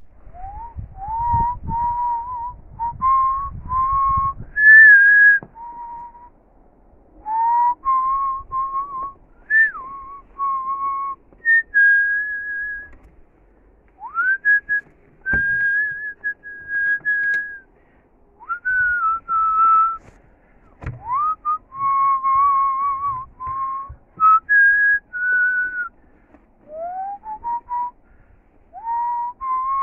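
A person whistling a slow tune in phrases of held notes, most of them reached with a quick upward slide, with a low rumble underneath during the first few seconds and again about two-thirds of the way through.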